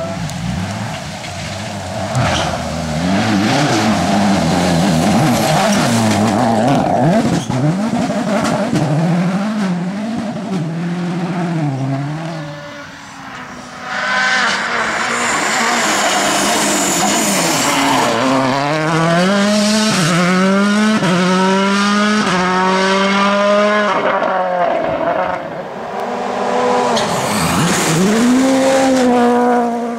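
Rally car engines revving hard, the pitch swinging up and down as the cars are driven through corners, with tyre squeal. In the second half one car accelerates through several gears, its pitch rising and dropping back at each upshift.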